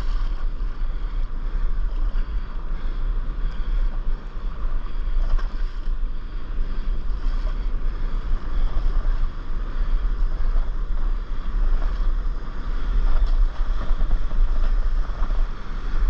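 Wind buffeting an action camera's microphone at water level over a steady wash of sea water, a continuous low rumble that rises and falls without a break.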